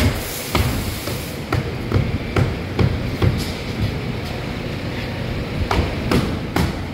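Hammer blows on a plywood shipping crate as it is knocked apart: about ten sharp, irregularly spaced strikes with a pause of a couple of seconds in the middle, over a steady low hum.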